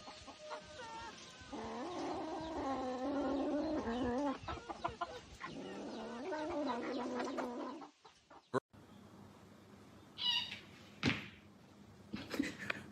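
A cat yowling in two long, wavering, drawn-out calls, followed by a few brief, fainter sounds in the second half.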